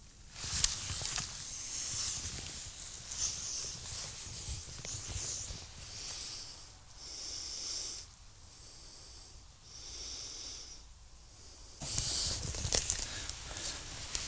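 Irregular bursts of rustling hiss from movement in clothing and grass, with a sharp click about half a second in. It grows louder and busier near the end, with a run of small clicks.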